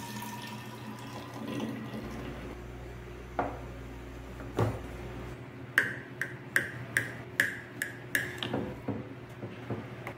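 Coffee pouring from a pot into a thermos flask for the first couple of seconds, then a quick run of about seven sharp, ringing clinks of a knife against a plate as a cake is cut.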